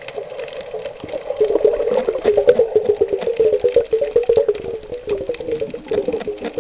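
Underwater sound picked up by a submerged camera: a dense, rapid crackle of clicks and rattles that grows louder about a second in.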